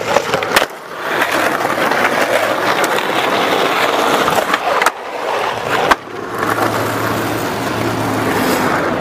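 Skateboard wheels rolling over rough concrete and asphalt, with several sharp clacks of the board striking the ground, the loudest about six seconds in.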